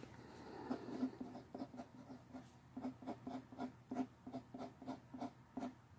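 Pen writing on a sheet of paper, faint: first a word in uneven scratchy strokes, then a quick run of short tally strokes at about four a second.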